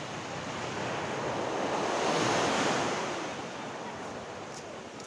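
Ocean surf washing on the beach, swelling to a peak about halfway through and easing off, with some wind on the microphone.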